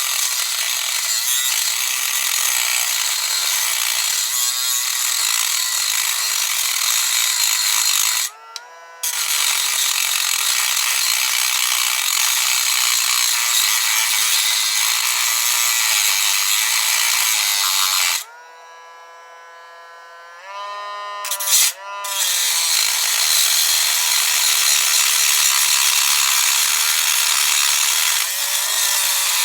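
Handheld power tool cutting through the hardened steel shackle of a padlock: a loud, harsh grinding over a motor whine. It stops briefly about eight seconds in and again for a couple of seconds around eighteen seconds, the whine dropping and then rising as the tool spins back up before the cut resumes.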